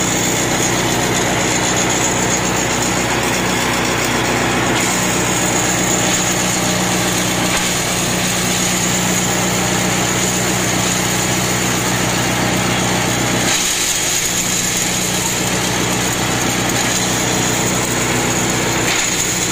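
Small petrol engine running steadily, driving a feed chopper as it chops fodder. A steady high whine sits over the engine's hum.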